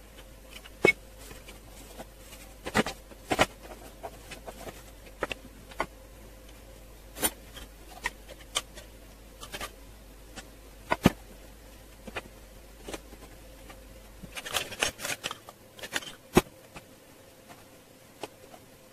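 Utensil scraping and knocking against a plastic bowl and a metal springform pan as thick chocolate cake batter is spooned in: scattered clicks and knocks. A faint steady hum underneath; its deepest part stops about three quarters of the way through.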